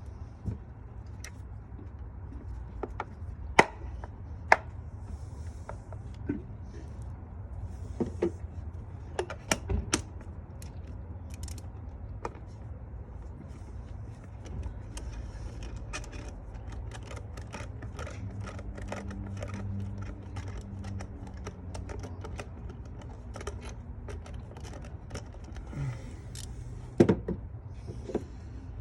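Hand tools clicking and clinking against metal during a spark plug change, with scattered sharp knocks and a long run of rapid ticks through the middle part, over a steady low hum.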